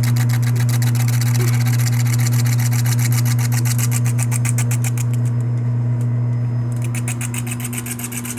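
Small lathe running with a steady motor hum while turning a cracker, with a rapid, even ticking over the hum. The ticking stops for about a second and a half past the middle, then resumes.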